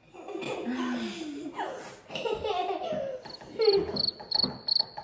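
Children giggling and laughing, with a woman's voice among them. In the last second and a half, a high-pitched beep pulses about three times a second.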